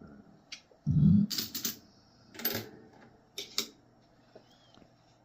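Coins being handled on a hard surface: a dull thump about a second in, then a handful of sharp, separate clicks as nickels are picked up and set down.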